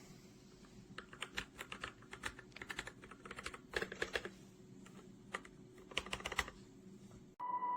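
Typing on a mechanical keyboard with pre-lubed Gateron Yellow linear switches: several short runs of keystrokes with brief pauses between them.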